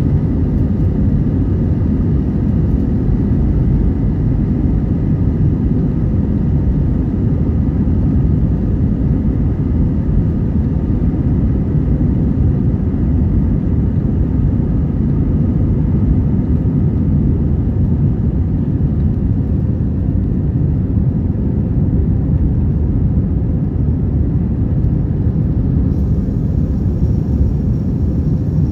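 Airbus A321 takeoff heard from inside the cabin. The engines at takeoff power make a loud, steady rumble with faint steady whining tones above it, through the roll down the runway and the lift-off.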